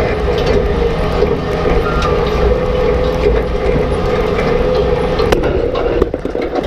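Old tractor-drawn rock picker at work: its tine reel turns and clatters steadily as soil and stones rattle against the steel basket, with many small knocks of rock on metal. The towing tractor's engine runs steadily underneath.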